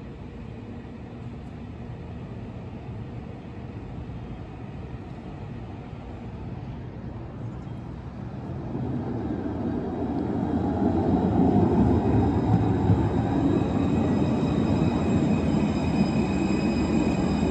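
Citadis low-floor tram approaching and passing close by. Its wheels on the rails grow louder from about nine seconds in and stay loud as the cars go past, with a steady high whine over the rolling noise near the end.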